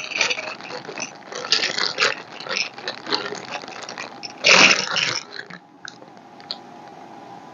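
Loose buttons clicking and rattling as a hand stirs through a box of them, with a louder rattle about four and a half seconds in; the clatter stops about a second later, leaving a faint steady hum.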